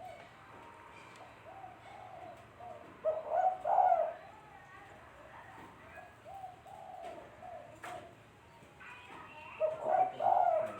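Spotted dove (tekukur) cooing: two loud cooing phrases about six seconds apart, with softer coos in between.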